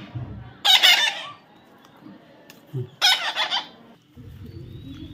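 Chicken calling: two loud calls about two seconds apart, each about half a second long, with a low rumble starting near the end.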